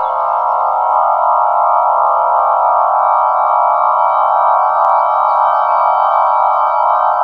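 Emergency Alert System attention signal: a loud, steady electronic alarm tone, held without a break. It is processed into a thick, buzzy band rather than the clean two-tone chord.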